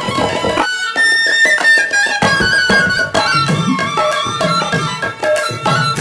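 Background music: an instrumental with a regular drum beat and a high melody line. Just after the start the low beat drops out while a long high note is held and then slides down.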